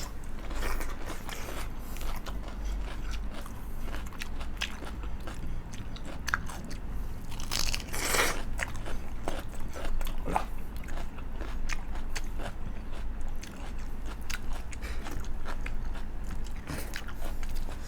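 Close-mic eating: crisp bites and chewing of papad with rice, an irregular run of crunches, the loudest about eight seconds in.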